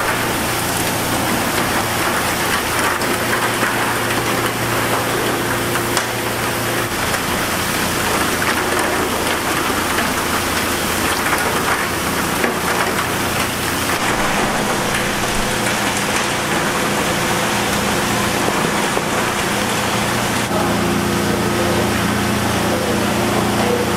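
Rotating-drum oyster washer running: heavy water sprays pour over oysters tumbling in a turning mesh drum, making a loud, steady rush of water. A low machine hum sits underneath, clearer early on and again near the end.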